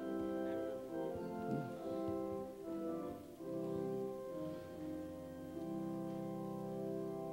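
Church organ playing slow, sustained chords that change about once a second, settling on one long held chord near the end.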